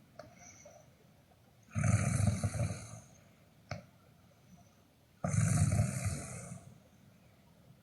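Snoring: two snores about three and a half seconds apart, each lasting a little over a second, with a short click between them.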